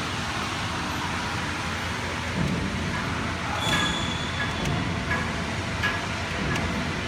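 Steady workshop background noise, with a few light clicks and knocks from about three seconds in as hands work the steel bracket, one of them ringing briefly and high.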